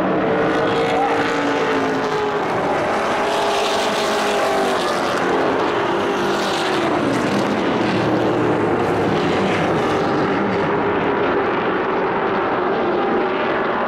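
A pack of short-track race trucks running at speed, several engines at once, their pitches slowly rising and falling as the trucks go by.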